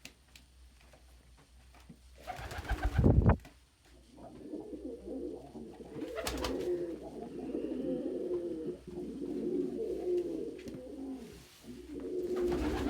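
Domestic pigeons cooing in a continuous run of low, wavering coos from about four seconds in. They come after a loud, brief rustling whoosh a couple of seconds in.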